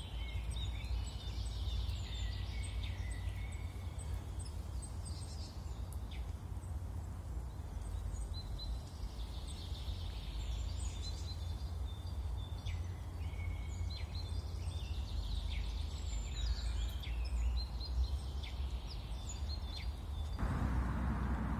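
Small birds chirping and twittering in short, high calls over a steady low rumble of background noise. Near the end a louder steady hiss with a low hum comes in.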